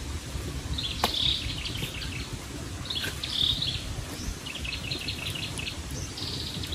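Forest birds chirping in three or four short runs of quick high notes, over a steady low background rush, with one sharp click about a second in.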